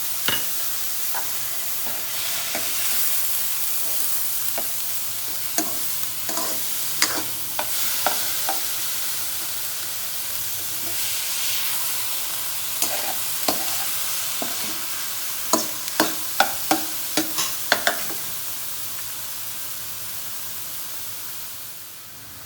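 Onions and capsicum with spices sizzling in oil in a frying pan while a spoon stirs them, clicking and scraping against the pan. Near the end come about seven quick, loud taps of the spoon on the pan, roughly three a second.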